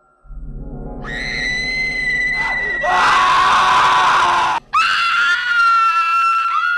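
Two long, shrill screams of the tormented damned, over a low pulsing drone. The first scream turns harsh and ragged partway through and breaks off; a second, wavering scream follows straight after.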